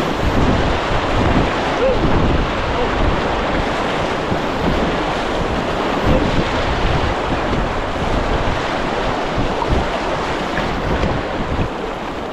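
Whitewater rapids rushing and churning around a fishing kayak, a steady loud roar of moving water, with gusts of wind buffeting the camera microphone.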